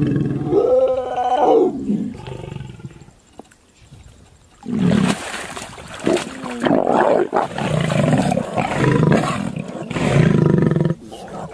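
Lions vocalising: a short, wavering high call near the start, then after a brief lull, a long stretch of loud, rough growls and roars.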